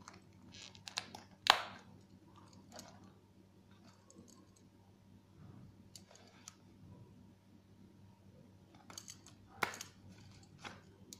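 Black leather pistol holster being handled: soft rubbing and rustling, with a few sharp clicks, the loudest about one and a half seconds in and another near the end, over a faint steady hum.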